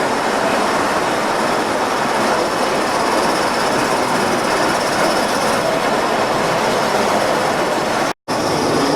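A train running, a steady rushing noise with no clear beat, which cuts out for an instant about eight seconds in.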